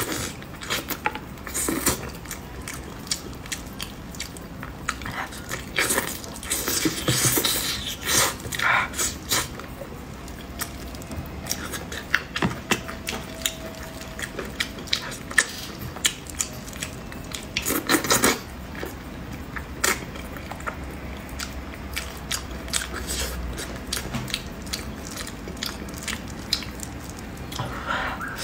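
Close-miked mouth sounds of eating braised pig's trotters: biting and gnawing the tender meat and skin off the bone and chewing, with many small irregular wet clicks.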